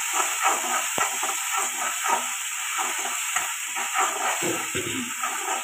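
Mustard paste sizzling in hot oil in a wok while a spatula stirs and scrapes it. A steady hiss lies under repeated short scrapes, a few a second, with one sharp click about a second in.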